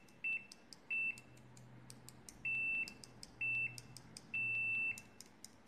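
Continuity beeper of a Sanwa CD732 multimeter sounding as its test leads make and break contact: five short, high, single-pitch beeps of uneven length, roughly a second apart, with faint clicks between them. The beeper responds slowly to contact, and the reviewer judges its continuity response not fast.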